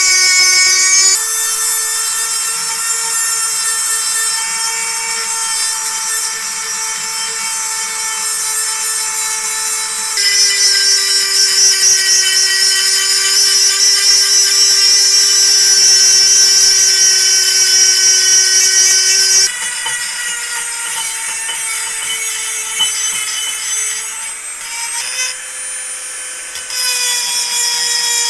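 Electric power tool running steadily under load on the axe head, with a high gritty hiss over the motor's whine. About ten seconds in the pitch drops and the hiss grows, as if pressed harder into the work. It rises again and lightens about twenty seconds in.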